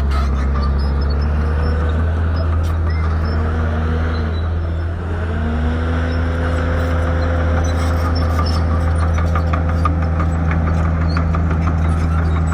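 Shantui bulldozer's diesel engine running steadily; its pitch sags about five seconds in, then climbs back and holds. A fast light clicking comes in during the second half.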